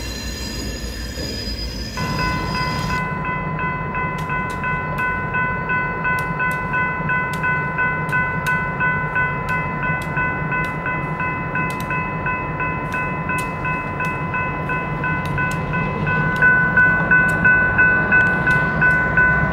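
Steel locomotive wheels squealing on the track through a grade crossing. Then a grade-crossing bell rings steadily and repeatedly over the low rumble of diesel locomotives hauling freight cars, getting louder near the end.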